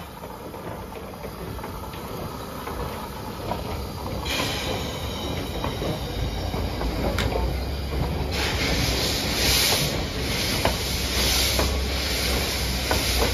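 Steam tank locomotive C108, a 1930 2-6-4T, and its coaches moving slowly past. Steam hisses steadily at first, then a low rumble builds with wheels clicking over the rail joints, and from about eight seconds in a louder rushing hiss comes in slow surges.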